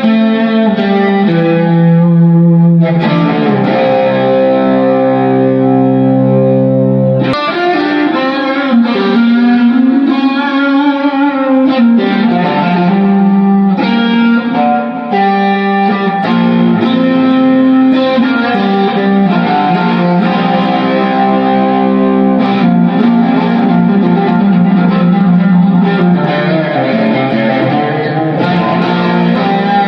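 Frankenstrat-style electric guitar with a Floyd Rose 2 tremolo, played through a Fractal amp modeler set for an 80s tone: sustained chords and riffs, with a stretch of wavering, swooping pitch about eight seconds in.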